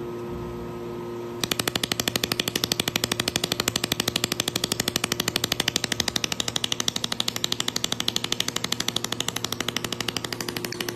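Automatic pulsed laser welding machine firing a rapid, even train of sharp snapping pulses as it welds a programmed line, starting about a second and a half in, over a steady machine hum.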